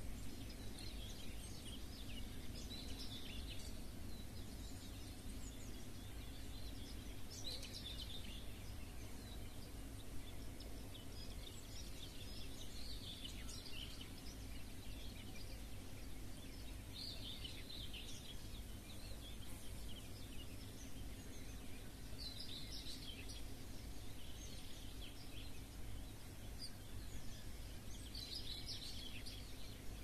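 Dawn birdsong: short song phrases every few seconds over a steady low background hum.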